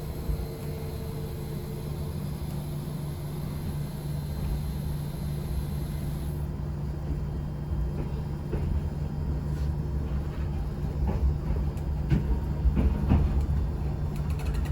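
Electric train running on the Yoro Railway line, heard from inside the car: a steady low rumble, with clicks and knocks from the wheels over the track growing more frequent in the second half.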